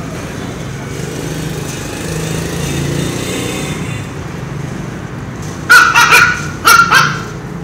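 Puppies barking: two short clusters of sharp, high-pitched barks near the end, over a steady low background rumble.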